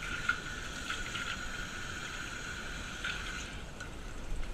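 Kitchen tap running into a stainless steel sink while hands are rinsed under it, a steady splashing hiss that stops near the end.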